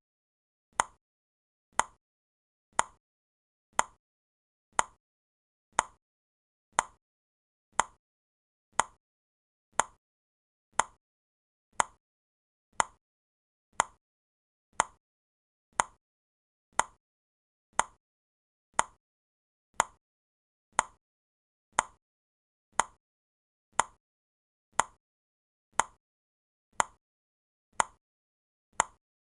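Countdown timer ticking like a clock: one short, sharp tick each second, with silence between the ticks.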